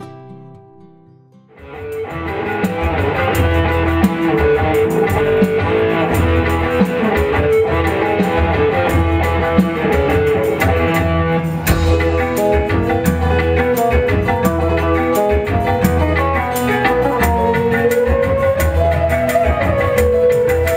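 Music: a few soft plucked guitar notes, then about a second and a half in, a full band comes in loudly with drums, bass and guitar and plays on steadily.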